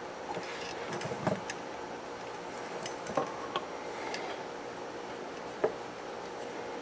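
A few light clicks and taps of a soldering iron, small metal clips and wire being handled at a workbench, the sharpest one between five and six seconds in, over a steady background hum.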